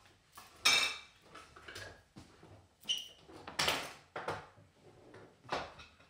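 Kitchenware clattering: utensils and a knife clinking against pots, bowls and dishes, about five separate clinks, some with a short metallic ring, the loudest about a second in.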